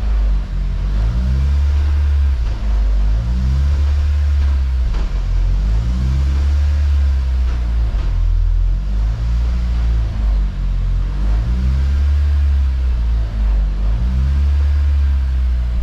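Honda S2000's four-cylinder engine revving up and shifting through the gears with the car up on a lift and the driven wheels spinning free: a light break-in run of a newly installed clutch. The engine pitch rises and drops again and again, with a shift every second or two.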